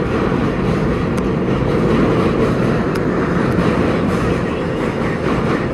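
Vintage R33 subway train running at speed: a steady, loud rumble of wheels on rail and traction gear, with a couple of faint clicks.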